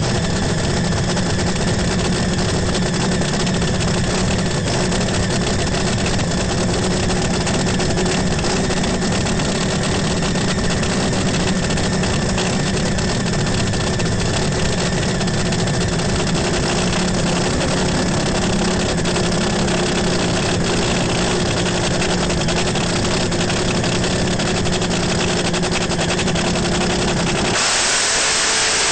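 Top Fuel dragster engine idling steadily with a low, even rumble. About a second before the end the rumble drops away and a loud hiss takes over.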